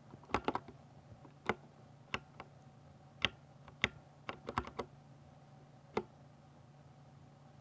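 Typing on a Ducky 60% mechanical keyboard with silver switches: irregular, unhurried keystroke clacks, sometimes in quick clusters. The typing stops about six seconds in.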